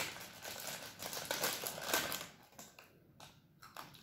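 Crinkling and crunching from a plastic packet of salted peanuts being handled and the peanuts eaten, mostly in the first half, with another short burst near the end.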